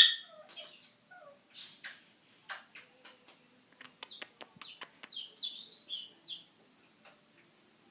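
Pet bird chirping and giving short high calls, with a brief loud burst at the very start and a quick run of sharp clicks about four seconds in.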